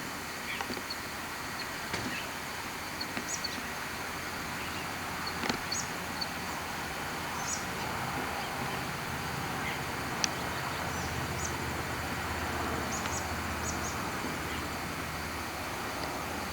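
Steady outdoor background hiss with scattered short, high chirps and clicks, and a low hum that swells in the second half.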